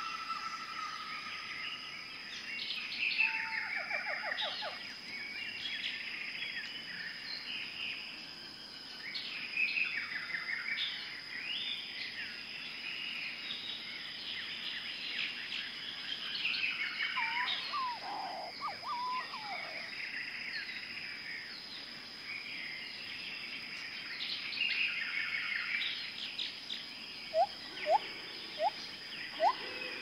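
A chorus of several small songbirds chirping and trilling over a steady high whine. Near the end come a few short, sharp upward-sweeping calls, louder than the rest.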